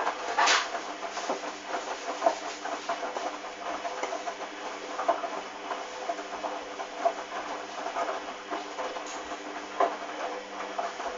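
Hoover DYN 8144 D front-loading washing machine running: a steady motor hum with irregular knocks and clicks from the turning drum.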